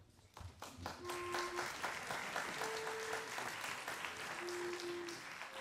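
Audience applauding in a hall: the clapping starts a moment in, swells to a steady patter within about a second, and begins to thin out near the end.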